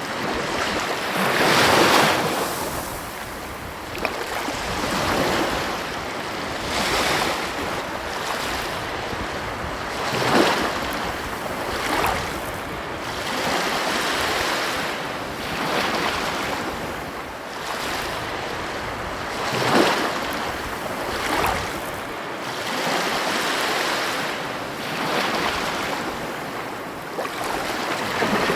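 Ocean waves breaking and washing up on a beach, a steady rush that swells and ebbs every few seconds, with several sharper crashes, among them around 2, 10 and 20 seconds in. Some wind noise on the microphone.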